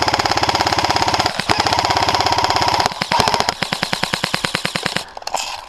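Airsoft electric gun firing a long full-auto burst, a fast, even rattle of shots. It grows quieter about three seconds in and stops about five seconds in, followed by a few scattered clicks.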